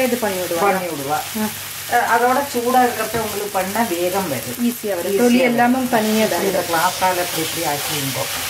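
A masher pressing and scraping cooked brinjal in a pan on the stove, over the sizzle of the frying oil. A wavering pitched sound rises and falls repeatedly over a steady hiss.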